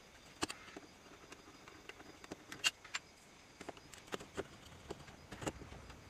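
Faint, irregular clicks and ticks of a screwdriver working the screws of a door knob, metal on metal, with a few sharper clicks among them.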